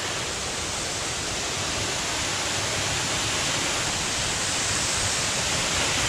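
A waterfall more than 10 metres high, its falling water making a steady rushing hiss that grows slowly a little louder.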